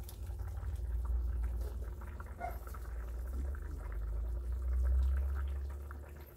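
Pot of fish broth simmering on an electric stove, bubbling faintly over a steady low rumble and a faint hum.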